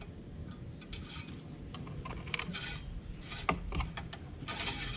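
Light handling noises: scraping and rubbing with scattered clicks, a sharp knock about three and a half seconds in, and a louder scrape near the end.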